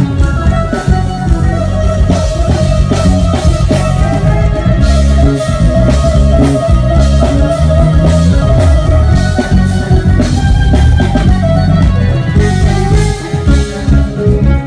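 A live band playing loudly, with guitars, bass and a drum kit over a steady beat.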